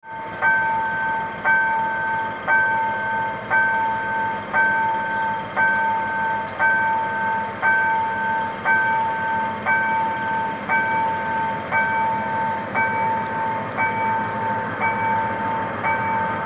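Level crossing warning bell ringing steadily, about one strike a second, each strike ringing on briefly at a fixed pitch: the signal that a train is approaching the crossing.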